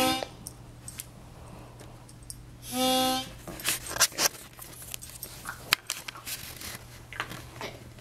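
Harmonica blowing a single low note, held about half a second, once right at the start and again about three seconds in. The low note is the cue conditioned to call the puppy forward to sit. Scattered light clicks and taps follow.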